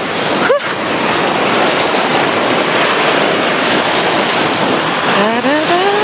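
Small waves breaking and washing up on a sandy Black Sea shore, a steady rushing hiss.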